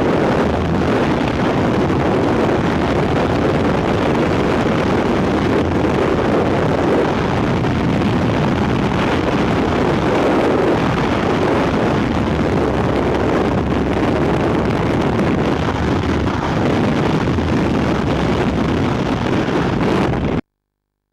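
Freefall wind rushing over a camera microphone as a skydiver falls, a loud steady rush that cuts off suddenly near the end.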